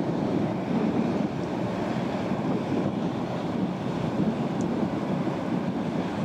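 Steady rushing of wind on the microphone and wash of water, with no clear engine note.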